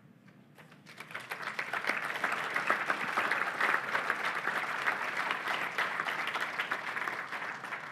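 Audience applauding, rising about a second in, holding steady, then thinning near the end.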